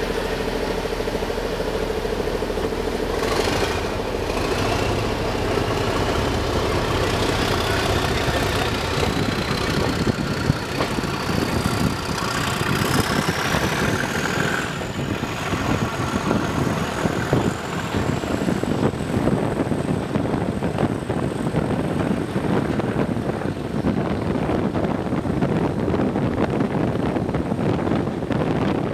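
British Rail Class 37 diesel locomotive 37254 pulling away under power, heard from a coach behind it. Its English Electric V12 engine works hard, and a whistle, typical of the Class 37's turbocharger, rises steadily in pitch for about ten seconds, then holds steady. Wheel and rail running noise builds as the train gathers speed.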